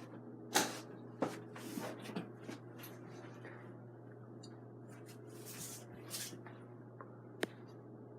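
Mainstays hugger ceiling fan running on medium speed with a steady low motor hum, overlaid by a few scattered sharp clicks and rustles, the loudest about half a second in.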